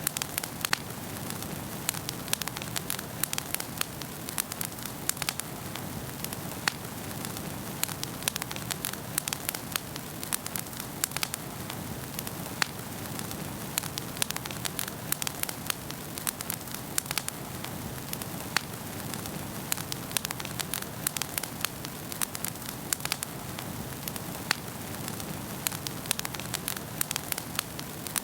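Wood fire crackling in a fireplace: a steady hiss with frequent, irregular sharp pops and snaps.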